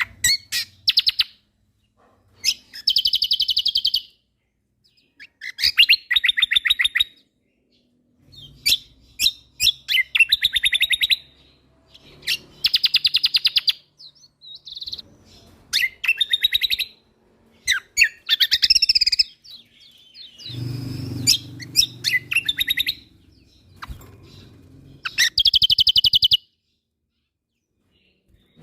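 Kecial kombok (cucak kombo) singing in loud, rapid rattling trills, a burst about every two seconds, with sharp high chips between the bursts.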